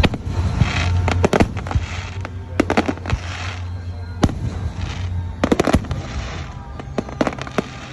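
Fireworks going off: volleys of sharp cracks and bangs come in clusters every second or two, with hissing crackle between them.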